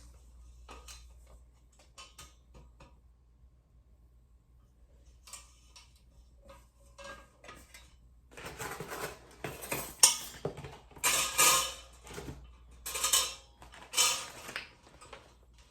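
Metal parts of a portable barbecue grill being handled and fitted together: a few light clicks and knocks, then from about eight seconds in a run of five or so louder metallic rattles and scrapes, with a sharp clank near ten seconds.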